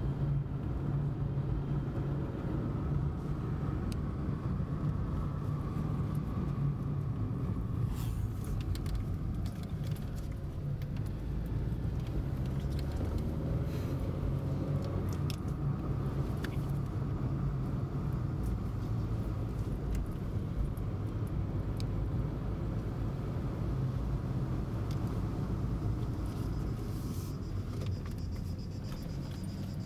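Car driving steadily up a hill, its engine and tyre noise heard from inside the cabin as a steady low rumble, with a few faint clicks and rattles.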